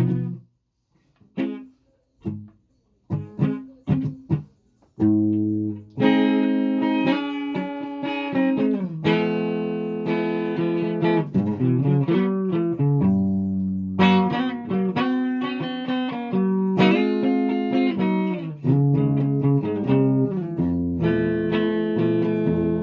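A plucked string instrument being played: a few separate notes with pauses between them, then continuous playing of notes and chords from about six seconds in.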